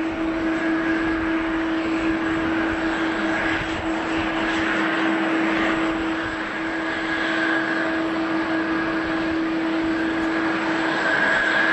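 Jet airliner engines running steadily: a broad rush of noise with a constant whine that holds one pitch throughout.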